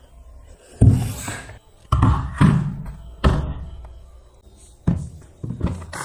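A 12 V wiper motor being handled and set down on a carpeted surface: about six dull, irregularly spaced thunks with short decaying tails, the loudest about a second in.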